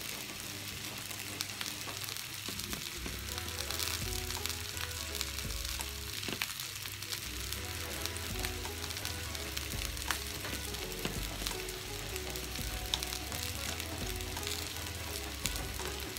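Salmon fillets sizzling steadily in hot oil in a ridged grill pan, with scattered small crackles. Soft background music with a bass line runs underneath from a couple of seconds in.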